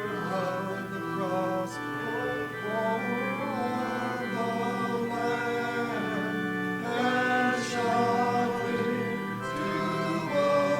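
Congregation singing a hymn with organ accompaniment, the organ's notes held steady under the voices.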